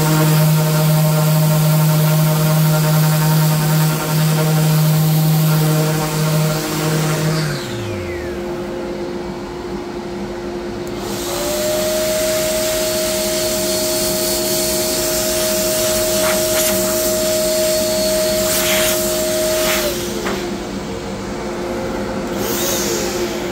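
Random orbital sander running on painted MDF, over the steady drone of a dust-extraction vacuum. The sander winds down about seven and a half seconds in, a motor spins up again around eleven seconds, and it winds down near twenty seconds.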